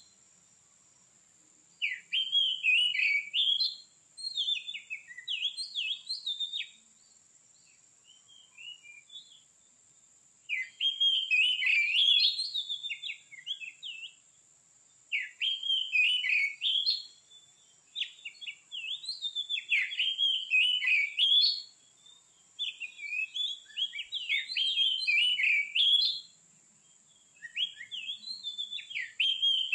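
Oriental magpie-robin (kacer) singing in bursts of a few seconds separated by short pauses. Each burst is a fast run of varied, whistled phrases full of mimicked notes.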